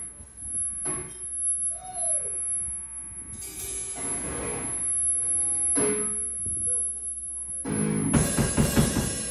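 Electric guitar and drum kit noodling between songs: scattered single notes, a short sliding note and a few loose drum hits. Near the end comes a louder burst of strummed chord and drums.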